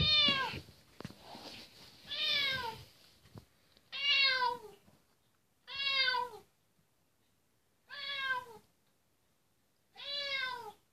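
Domestic cat meowing at a closed closet door to be let back in: six drawn-out meows about two seconds apart, each one falling in pitch at the end.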